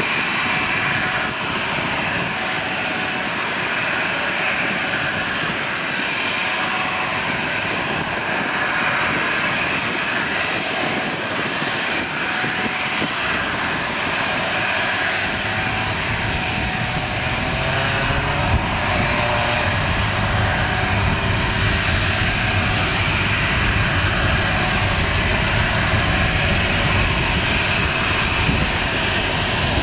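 Airliner engines of an aircraft taking off, a continuous loud engine noise whose low rumble grows heavier about halfway through.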